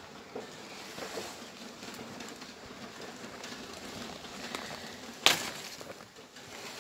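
A single sharp snap about five seconds in as a banana flower's stalk is broken off, over soft rustling of banana leaves being handled.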